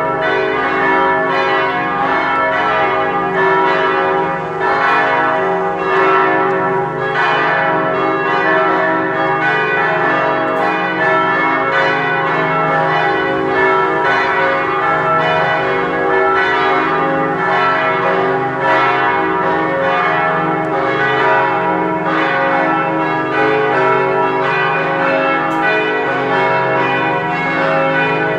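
Full peal of four swinging church tower bells, tuned C♯, E, F♯ and G♯, ringing continuously. The strikes overlap into a steady, dense clangour with the long hum of the bells sustained beneath.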